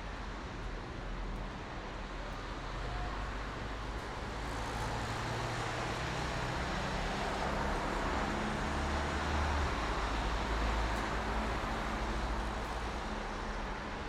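Steady highway traffic at night: a constant hiss of tyres and engines, with the rumble swelling as heavier vehicles pass through the middle and easing off toward the end.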